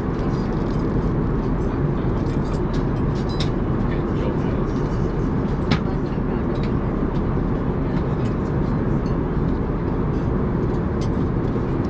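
Steady cabin noise inside an Airbus A380 airliner in flight: an even, low rushing hum of engines and airflow, with a few small clicks and one sharper tick about six seconds in.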